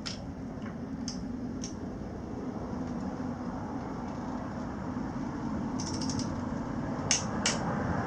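Ratchet torque wrench clicking in scattered sharp ticks as the handlebar stem bolts are tightened, with a few clicks close together near the end. A steady low rumble underneath grows louder toward the end.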